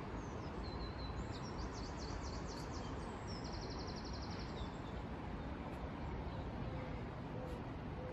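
Steady outdoor background hum of the city, with a small songbird singing high, fast trills for a few seconds from just after the start.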